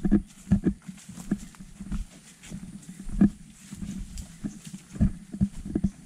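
Footsteps on a dry dirt forest trail, walking downhill: irregular thuds about two a second, with leaf litter crunching underfoot.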